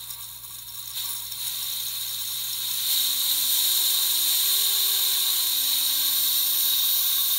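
Steady rushing hiss of air blown into the engine of a diecast model airliner to spin its fan. It grows stronger about three seconds in, with a faint wavering whir underneath.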